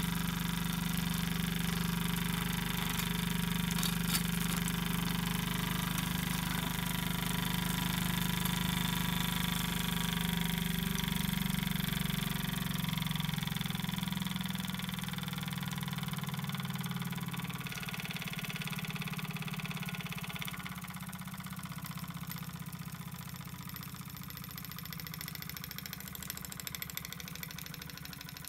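Small Opitec brass model steam engine running steadily, its flywheel spinning. The running sound slowly gets quieter over the second half.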